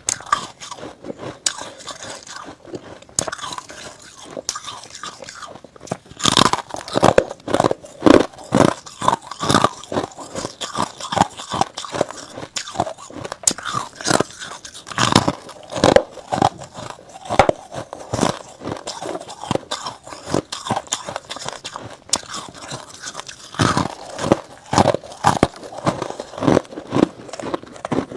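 Freezer frost being bitten and chewed close to the microphone: crisp, dense crunching. It starts as scattered small crackles, turns into steady rapid crunching about six seconds in, and after a brief lull resumes near the end.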